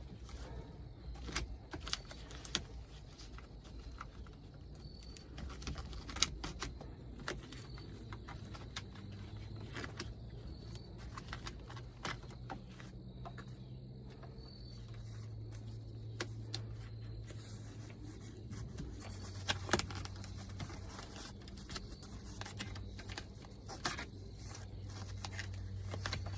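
Scattered clicks, taps and rustling from hands pushing a wire and plastic interior trim into place in a car cabin. A low steady hum comes in about nine seconds in and grows stronger partway through.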